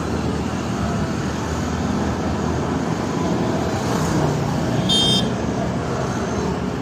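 Steady background noise of road traffic, with a brief high-pitched chirp about five seconds in.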